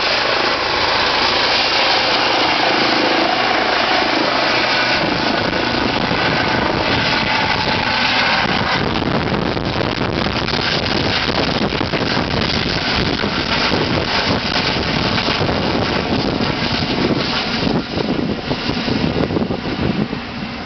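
Eurocopter EC135 air ambulance helicopter climbing away after take-off: steady twin-turbine whine and rotor noise. A rougher low rumble builds from about halfway in, and the sound falls off near the end as the helicopter departs.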